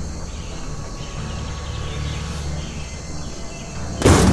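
Cartoon jungle sound effects: a steady low rumble under faint bird and insect calls, then a sudden loud crashing burst about four seconds in.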